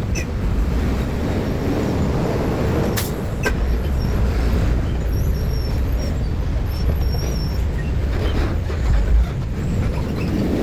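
Road traffic: motor vehicle engines and tyres making a steady low rumble, with two sharp clicks about three seconds in.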